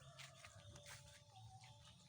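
Faint animal calls: thin held tones with scattered short chirps and clicks over a low rumble.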